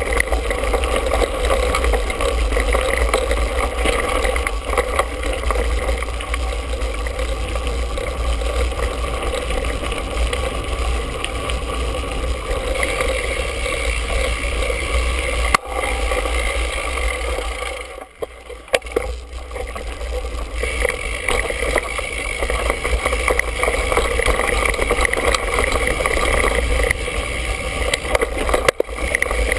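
Mountain bike riding over dirt singletrack, heard through a handlebar-mounted GoPro: steady wind and riding noise on the microphone, with a few sharp knocks as the bike hits bumps. The noise drops briefly about eighteen seconds in.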